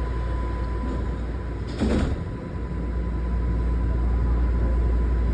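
Toronto subway car doors sliding shut with a short thud about two seconds in, followed by the low rumble of the train growing louder as it starts to pull out of the station.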